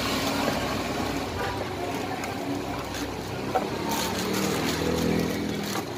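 Steady traffic noise with a vehicle engine that swells and rises in pitch from about two-thirds of the way in. Near the end there is brief crinkling of a thin plastic bag.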